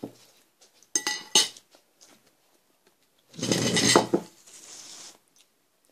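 Metal forks clinking and scraping on plates of noodles and pasta. Two sharp, ringing clinks come about a second in, then a longer, louder clatter of cutlery against the dishes about three and a half seconds in, fading into a faint rustle.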